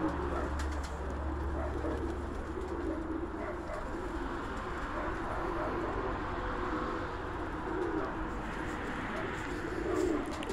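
A flock of domestic pigeons cooing, many overlapping coos at once.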